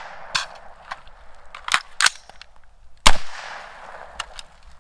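AR-15 magazine swap heard as a few sharp metallic clicks and knocks, then a single rifle shot about three seconds in that rings out briefly, followed by a couple more light clicks.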